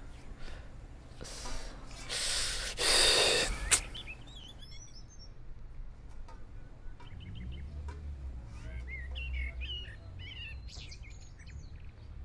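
Small birds chirping intermittently in the background. About two seconds in comes a short burst of handling noise ending in a sharp knock, as plates are set down on a table.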